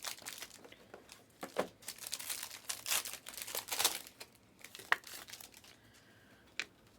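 Plastic packaging crinkling and rustling in irregular bursts as trading card packs and cards are handled, followed by a couple of sharp clicks near the end.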